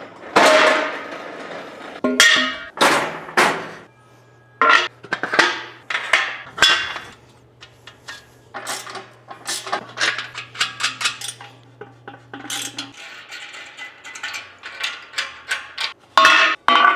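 Aluminium ground-mount solar rack rails and brackets clanking as they are set down on a concrete floor and fitted together: an irregular run of sharp metallic knocks and clatters, each ringing briefly.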